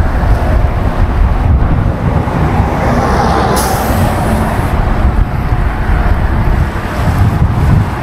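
Loud, steady low rumble of wind and road traffic noise on the bridge, with a brief hiss about three and a half seconds in.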